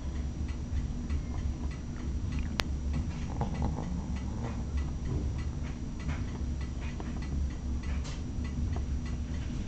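Sleeping dog snoring softly under a steady low hum, with faint ticking clicks and one sharp click about two and a half seconds in.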